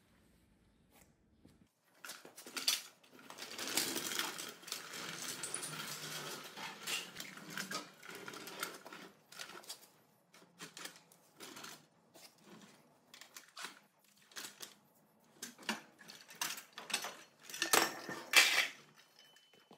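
Metal tools and parts clinking and clanking as they are handled during clutch and input-shaft fitting on a tractor, with several seconds of continuous rattling and scraping in the first half and a cluster of sharper knocks near the end.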